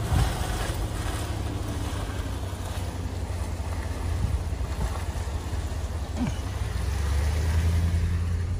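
Steady rushing noise of a flooded creek's fast brown water mixed with wind on the microphone, heard through an open vehicle window. About seven seconds in, the vehicle's low engine and road rumble grows louder as it drives on.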